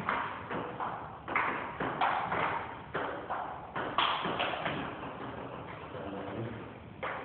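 Table tennis rally: the ball clicking off the paddles and bouncing on the table in quick alternation, about two hits a second, stopping about five seconds in.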